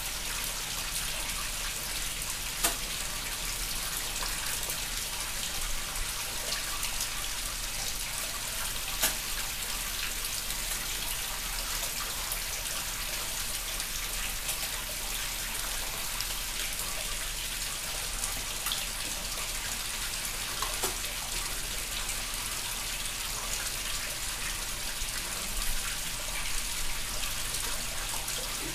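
Pump-fed waterfall splashing steadily into a koi pond, a continuous watery rush, with a few brief sharp clicks and splashes over it.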